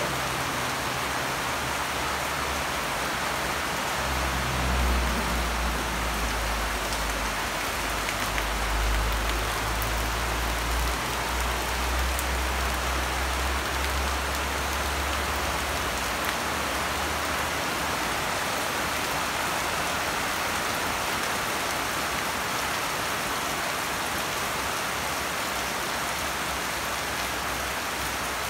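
Heavy rain pouring steadily onto the ground and foliage. A low rumble comes and goes through the first half.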